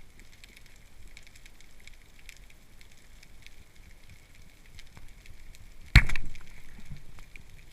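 Underwater ambience: a steady fine crackling of many small ticks, with a single sharp loud knock about six seconds in.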